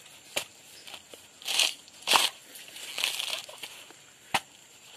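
Green coconut being husked on a metal spike: the fibrous husk crunches and tears as it is pried off, in a few rough bursts with a couple of sharp knocks.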